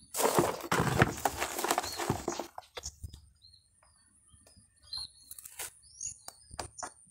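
A loud rustling, scraping noise for about the first two and a half seconds, then light scattered clicks as hands work around the soil, stones and trunks of a potted coconut bonsai. Short bird chirps sound in the background.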